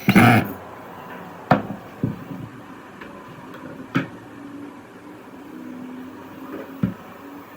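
A handful of separate sharp knocks and clacks, as of wooden workshop parts being handled and set down, the loudest right at the start and the rest spread over the next seven seconds. A faint steady low hum comes in during the second half.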